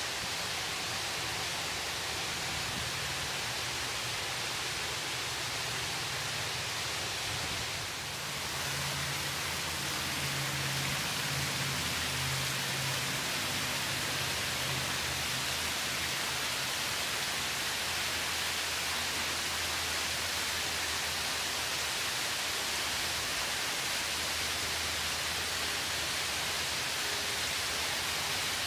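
Porte cochere water-wall fountain: water sheeting down stone walls and splashing into the troughs below, a steady rushing hiss. A faint low hum runs underneath, strongest about ten to sixteen seconds in.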